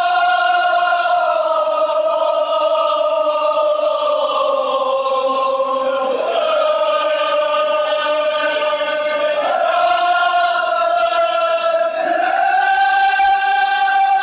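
Kashmiri marsiya, a Muharram elegy, chanted by a group of voices in unison in long held notes. The melody slides to a new pitch a few times.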